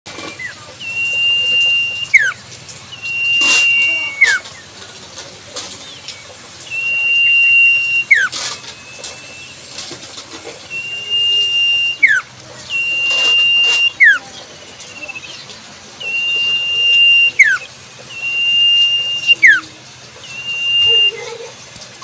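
Common iora (cipoh) singing its whistled song about eight times. Each phrase is a long, steady, high whistle of about a second that ends in a quick downward slur. A few short, sharp sounds fall between the phrases.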